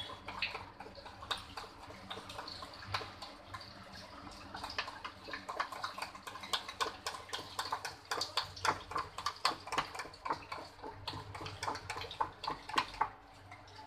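Thick gram-flour (besan) dhokla batter being mixed by hand in a glass bowl: quick, irregular wet slaps and squelches, growing busier after a few seconds.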